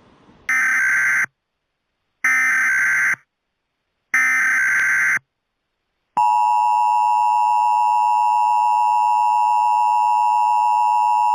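Emergency Alert System header: three short bursts of buzzy digital data tones, each just under a second and about a second apart, then the steady, loud two-tone EAS attention signal starting about six seconds in.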